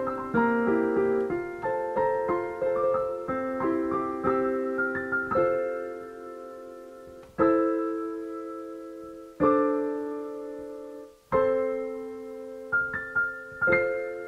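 Solo piano outro music: a run of quick notes, then slower chords struck about every two seconds and left to ring out, with a few quick notes near the end.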